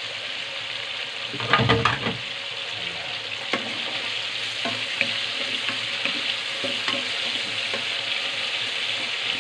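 Raw shrimp, fried pork, garlic, onion and tomato sizzling in hot oil in a pot while being stirred with a wooden spatula, a steady frying hiss with scattered clicks of the spatula against the pot. A louder brief clatter comes about a second and a half in.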